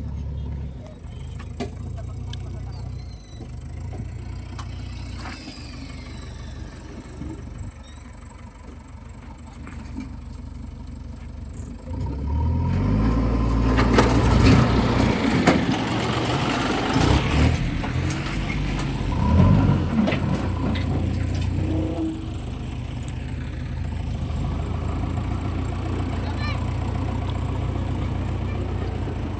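Heavy diesel engine of farm or earthmoving machinery idling steadily. It revs up about twelve seconds in and works hard and loud for roughly ten seconds, then settles back to a steady idle.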